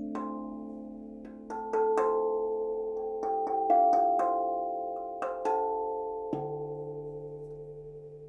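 Meinl Octave steel tongue drum played with rubber-tipped sticks: a slow, free run of about a dozen single struck notes, each ringing on and overlapping the next. A lower note struck about six seconds in is the last, left to ring out and fade slowly.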